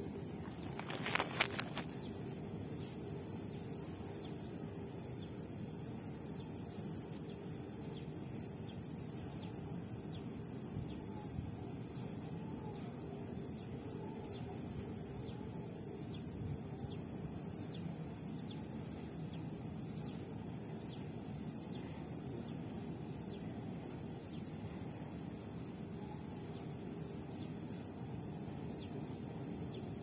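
Steady chorus of crickets: one continuous high-pitched trill that holds at an even level, with a couple of sharp clicks about a second in.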